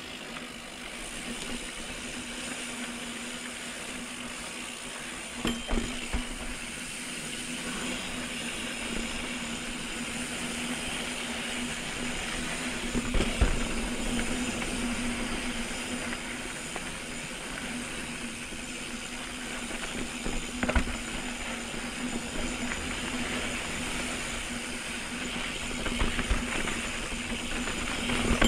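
Mountain bike rolling over a dirt trail: steady tyre and wind noise, with the bike rattling and knocking sharply now and then over rocks.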